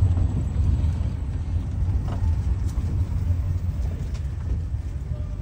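Vehicle driving along, a steady low rumble of engine and road noise heard from inside the cabin.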